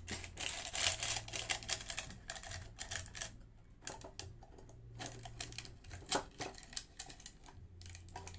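Thin clear plastic bag crinkling and rustling as it is stuffed down into a tin can and pressed in with a stick, in quick irregular crackles. A low steady hum runs underneath.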